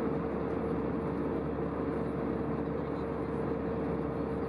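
Airbus A320 cabin noise in flight, heard from a seat over the wing: a steady rush of engine and airflow noise with a steady mid-pitched hum running through it.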